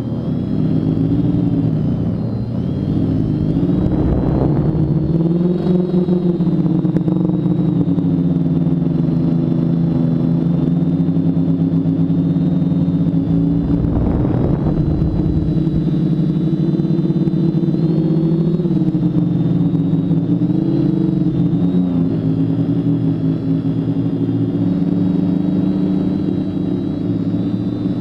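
TBS Discovery quadcopter's four brushless motors (BirdDog 900 kV) spinning 10x4.5 propellers in flight, heard from the camera on the frame. The motor hum drifts up and down in pitch with the throttle, over a thin high whine. Rushes of air come through about four seconds in and again around fourteen seconds.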